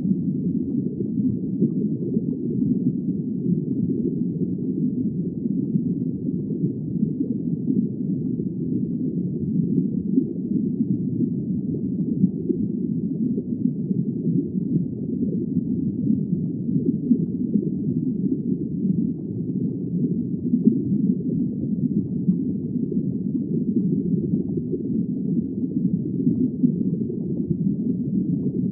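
Steady, muffled underwater ambience: a low, even rumble of water with no high sounds and no distinct calls.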